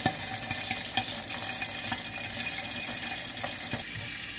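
Frozen salmon fillet sizzling in olive oil in a covered frying pan: a steady hiss with scattered pops and crackles, dropping a little quieter near the end.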